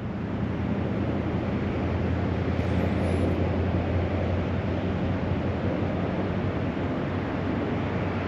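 Steady roar of high, fast-flowing water rushing past, with a low rumble underneath.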